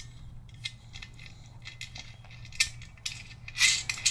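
Light metallic clicks and scrapes of a washer and nut being handled and threaded back onto a fender bracket bolt by hand, with a louder clatter of clinks about three and a half seconds in.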